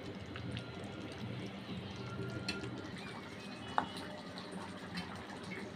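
Curry being dished from a pot onto a plate: a few faint, scattered clicks of a spoon and soft wet drops of food, over a low steady hum.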